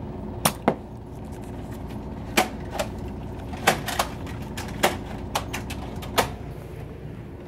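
Sharp plastic clicks and clacks at irregular intervals, about nine in all, from a jammed toy dart minigun being worked, over a faint steady hum.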